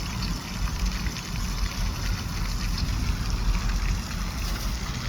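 Water smacking and splashing close up, an irregular sloshing over a low rumble.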